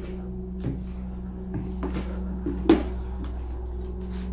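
A few short knocks and clunks, the loudest about two and a half seconds in, over a steady low hum.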